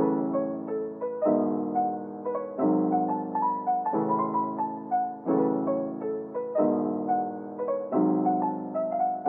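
Background piano music: a gentle, even pattern of chords changing about every second and a half, with a melody of single notes above.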